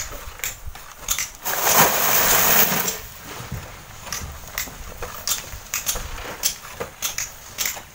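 Bamboo poles scraping at a sand cliff, with loose sand and small stones clattering down in irregular clicks. About a second and a half in, a louder rush of sliding sand lasts about a second and a half.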